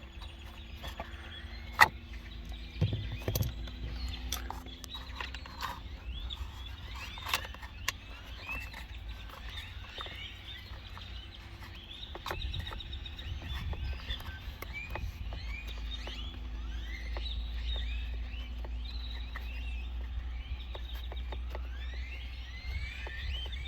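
Scattered clicks and light knocks of a hand tool working a 5.5 mm screw out of a steering-column blinker switch, the sharpest about two seconds in, over steady chirping calls and a low rumble.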